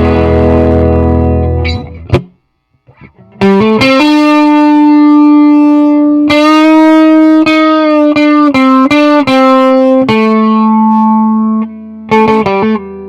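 Epiphone Les Paul 100 electric guitar played through effects. A chord rings and is cut off about two seconds in, then after a short pause comes a lead line of single notes, some held and left to sustain.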